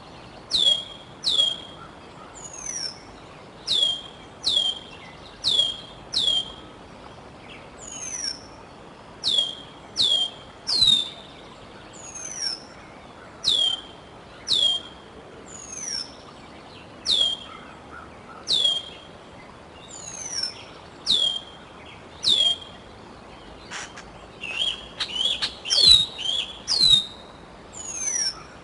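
Juvenile bald eagle calling: high, thin, down-slurred whistles, each about a third of a second long, repeated in runs of two or three, with a quicker flurry of calls near the end. These are the repeated food-begging calls of a young eagle back at the nest looking for leftovers.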